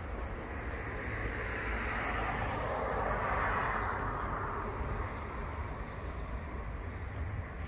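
A car driving past, its tyre and engine noise swelling to a peak about three seconds in and then fading away, over a steady low rumble.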